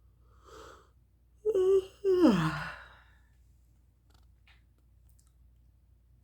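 A person yawning aloud: a soft breath in, then two voiced sounds, the second sliding down in pitch as the yawn ends.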